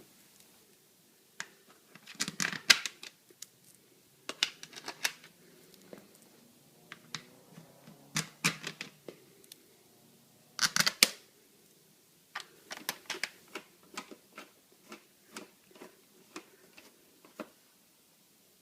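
Irregular clicks and short rattles of screws and a hand tool as the screws go back into the plastic airbox cover, with a few louder clattering bursts between runs of small ticks.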